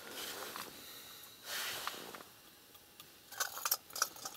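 Handling noise at ice-fishing rods on slushy ice: a soft rustle, then a quick cluster of crunchy clicks about three and a half seconds in.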